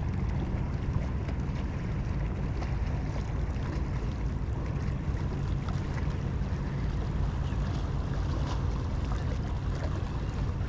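Wind buffeting the microphone on a small boat on open water, a steady low rumble with waves in the background.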